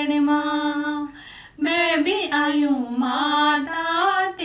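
Two women singing a Hindi devotional bhajan (mata bhajan) unaccompanied, holding long drawn-out notes, with a brief pause about a second in.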